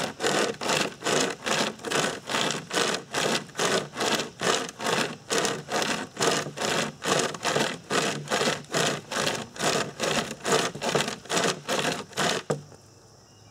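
Hand-pulled pocket chainsaw, a toothed chain worked back and forth by hand loops, rasping through a wooden log in even strokes at a little over two a second. The sawing stops suddenly near the end.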